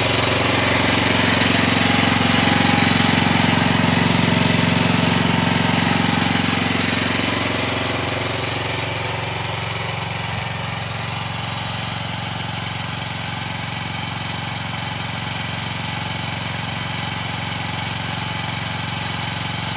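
Small engine of an AGT Industrial H15 mini excavator running steadily. It is louder with a slight rise and fall in pitch over the first several seconds, then settles to an even, quieter run from about eight seconds in.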